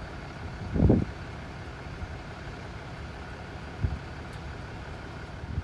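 Steady low rumble of vehicle engines idling at the street scene. A brief louder low thud comes about a second in, and a smaller one near four seconds.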